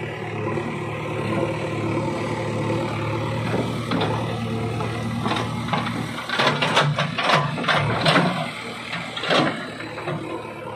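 JCB 3DX backhoe loader's diesel engine running steadily as the backhoe digs. From about six seconds in, a quick run of sharp knocks and scrapes as the bucket tears through stony soil, with a last knock near the end.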